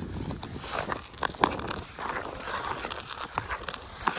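Scraping and shuffling on pond ice, with a few sharp knocks a second or so in and again near the end.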